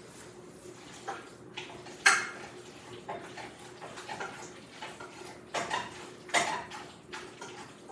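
Metal pots and pans being handled, clanking and clinking in separate knocks, with one sharp clank about two seconds in and a cluster of clanks near the end. A faint steady hum runs underneath.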